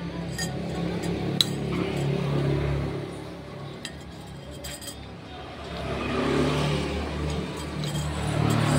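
Metal spoon clinking against a ceramic bowl a few times, the sharpest clink about a second and a half in, over the low hum of passing road traffic.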